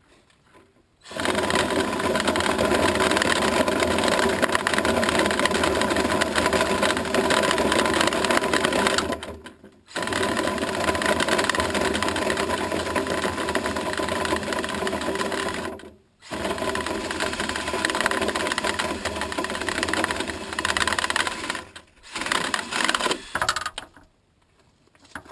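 Power drill spinning a dryer-vent cleaning brush on its rods through the vent duct. It runs in three long stretches of several seconds with brief stops between them, then a few shorter bursts near the end.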